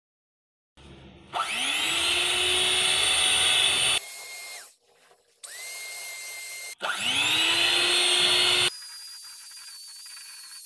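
Scarlett electric hand mixer's motor running with its dough hooks kneading flour into dough in a steel bowl: it whines up to speed twice, each time loud for about two seconds, with quieter running in between and near the end.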